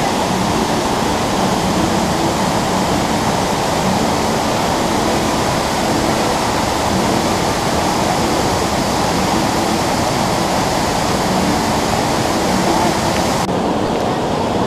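Waterfall pouring over rock ledges into churning rapids: a steady, loud rush of water that turns duller near the end.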